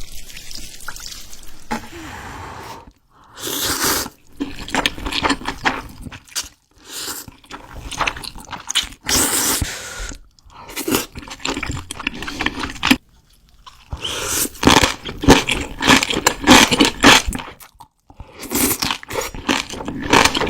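Close-miked eating sounds: a person chewing and crunching mouthfuls of spicy ramen and side dishes, in bursts of a second or two with short pauses between them.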